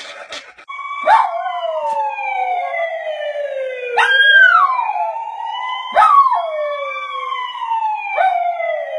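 An emergency-vehicle siren wails in long, slow rising and falling glides while a small white curly-coated dog howls along with it, its short wavering howls breaking in over the siren several times.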